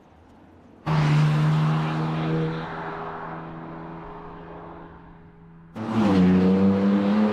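BMW M4 Competition's 3.0-litre twin-turbo straight-six exhaust in two edited sound clips. About a second in the engine note cuts in loud at a steady pitch and fades away over several seconds; near the end a second clip cuts in, the note rising slightly under acceleration.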